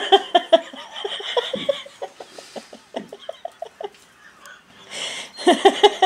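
A woman laughing in runs of short repeated ha's that trail off in the middle and pick up again near the end.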